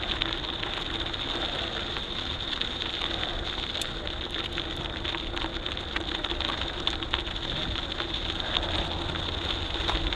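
Mountain bike riding over rough ground: a steady rolling rush of tyres and wind with many small crackles and clicks.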